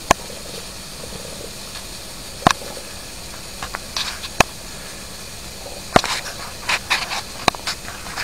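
Steady hiss of steam from a running live-steam model boiler and engine plant, with a few sharp, irregular clicks, several of them close together near the end.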